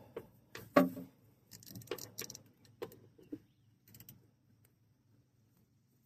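Metal hand tools clinking and rattling in a handful of short, sharp knocks, the loudest a little under a second in, as a larger wrench is readied for a stuck oil drain plug. It falls quiet after about four seconds.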